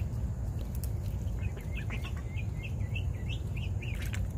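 Young ducklings peeping: a quick run of short, high chirps starting about a second in, over a steady low rumble.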